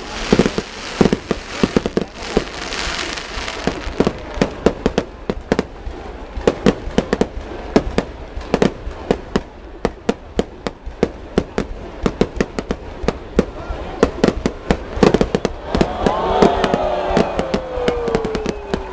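Aerial fireworks going off in quick succession: a dense string of sharp bangs, several a second, with spells of crackle.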